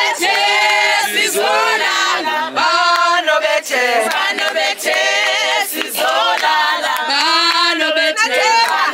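A group of people singing a Xhosa song together, unaccompanied, with women's voices to the fore.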